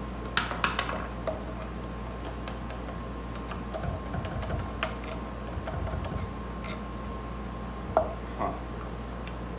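Scattered light metallic clicks and clinks of a hand tool and small metal parts against the band saw's metal frame and plate while its screws are worked loose, the sharpest about eight seconds in, with a few dull knocks in the middle. A steady faint hum runs underneath.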